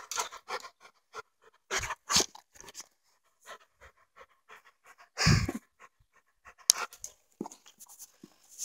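A dog panting in short, irregular breaths right at the microphone, with one louder burst of noise a little after five seconds in.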